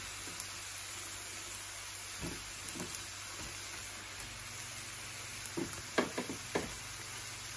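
Shrimp fried rice frying in a stainless steel pan: a faint steady sizzle, with a few soft taps about two seconds in and again near the end.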